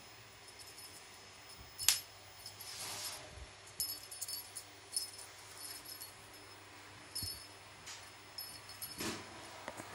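Scattered small jingles and light clicks from a cat playing with a feather wand toy, with one sharp click about two seconds in and another flurry near the end.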